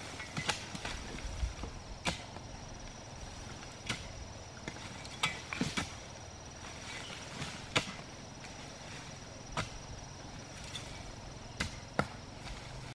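A hoe chopping into earth, a sharp strike every second or two at an uneven pace, with a steady high insect drone behind it.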